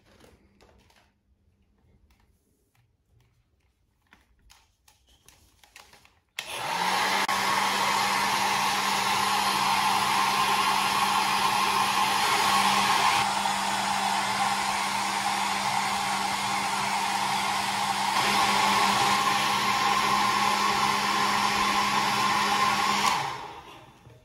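A wall-mounted hair dryer starts about six seconds in and blows steadily: a rush of air over a low motor hum, lasting about seventeen seconds, then winding down as it is switched off.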